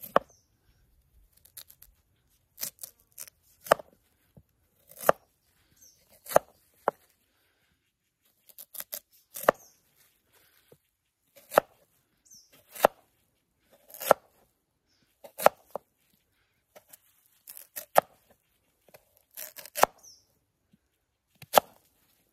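Kitchen knife slicing a raw sweet potato on a plastic cutting board: short, crisp cuts, each ending in a tap on the board, coming irregularly about once a second and sometimes in quick pairs.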